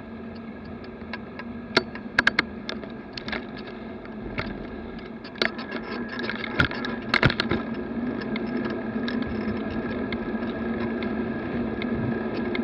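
Bicycle ride recorded on a bike-mounted camera: steady road and traffic noise, with several sharp knocks and rattles, bunched in the first half, as the bike goes over bumps and kerbs.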